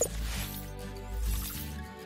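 Short logo jingle music: a sharp accent at the start, then held musical notes that swell again a little over a second in.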